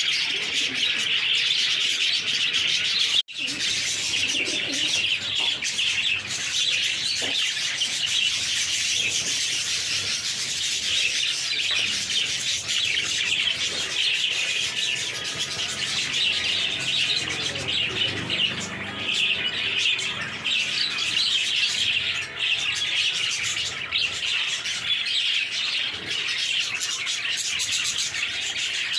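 Many caged budgerigars chirping and chattering continuously in a dense chorus, broken by a short gap about three seconds in.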